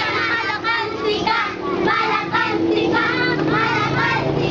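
Voices singing a song of praise to God.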